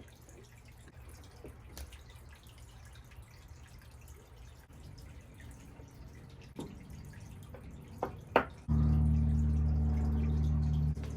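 A few sharp clicks, then an electric motor switches on abruptly about two thirds of the way through and runs with a steady, even hum, dropping slightly in level just before the end.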